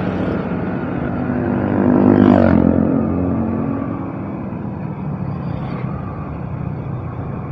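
Sport motorcycle's engine running at cruising speed with wind rumble on the rider's camera mic. About two seconds in, an oncoming motorbike passes and the engine sound swells briefly before settling.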